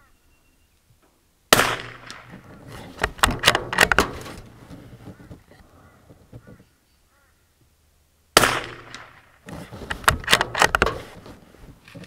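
Two shots from a Tikka T1x UPR .22 LR bolt-action rifle, about seven seconds apart, each a sharp crack with a short trailing echo. Each shot is followed a second or two later by a quick run of metallic clicks as the bolt is worked to chamber the next round.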